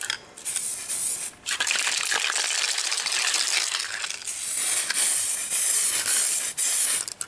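DuraCoat aerosol spray can spraying coating: a brief burst, then one long spray from about a second and a half in that cuts off just before the end, a steady hiss with a crackle through it. The can is sputtering, which the painters put down to a nozzle issue.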